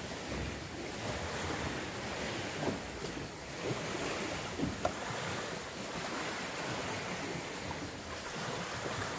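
Sea water washing and lapping with wind on the microphone, a steady noisy wash broken by a few short sharp slaps around the middle.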